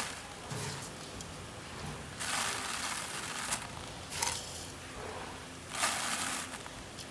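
Handfuls of rice grains scooped from a metal pot and sprinkled into a plastic bucket holding a little water, a rustling patter of falling grain in three short bursts about two seconds apart.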